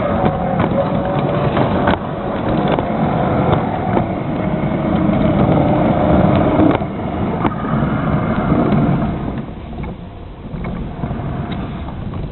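LGB G-scale model train running along its track: electric motor whine with clicks from the wheels, growing quieter after about nine seconds.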